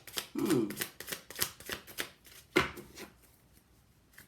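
Tarot cards being shuffled by hand: a quick run of riffling clicks and snaps. A short vocal sound comes about half a second in.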